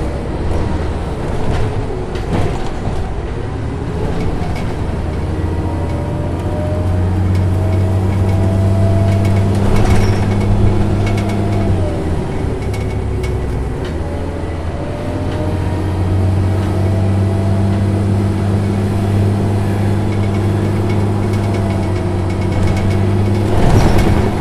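Inside a moving city bus: the engine drones under load with a whine that rises in pitch as the bus gathers speed, eases off about halfway through, then pulls up again, over the rattle of the cabin. There is a brief louder rush about ten seconds in and again near the end.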